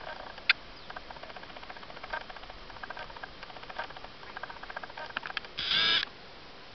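A short, loud yell from a person's voice near the end, over faint scattered ticks and a sharp click about half a second in.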